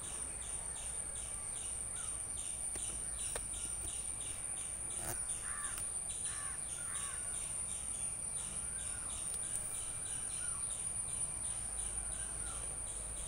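Outdoor garden ambience: insects keep up a steady high drone with a regular pulsing chirp about three times a second. A bird calls a few times in the middle.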